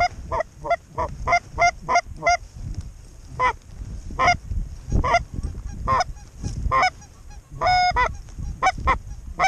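Goose honking: a quick run of honks, about three a second at first, then more spaced out, with one longer drawn-out honk near the end. A low wind rumble on the microphone lies underneath.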